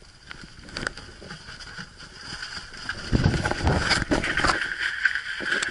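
Clicks and rattles of a wire crab pot full of crabs being handled on a boat deck. About three seconds in, a louder low rumble and a steady hum come in.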